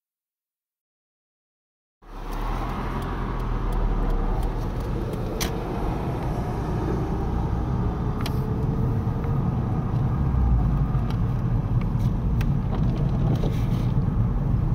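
Silence for about two seconds, then the steady rumble of road and engine noise heard from inside a moving car, with a few sharp ticks.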